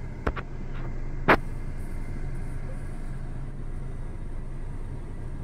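A car driving along an expressway, heard from inside the cabin: a steady low rumble of engine and tyre noise. Two quick sharp clicks come in the first half second, and a single louder click or tap follows about a second later.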